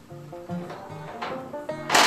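Background music: a light melody of short plucked notes. Right at the end a loud, harsh noise cuts in suddenly.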